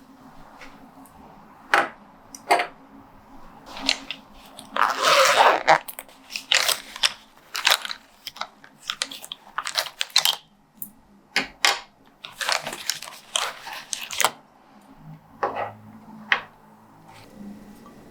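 Crunchy scraping, tapping and tearing from hand block-printing work on a linoleum block and paper: irregular short strokes and clicks, with the longest, loudest scrape about five seconds in.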